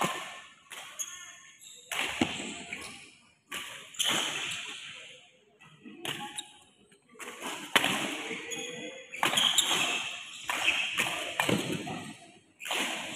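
Badminton rackets striking a shuttlecock back and forth in a rally, a sharp hit about every one to two seconds, coming faster in the second half, each hit echoing in the hall.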